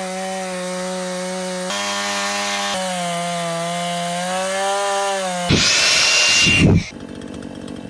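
Chainsaw running at high speed, its pitch sagging as it bites into the wood. About five and a half seconds in comes a louder rasping burst of cutting, then the saw drops back to a quieter run.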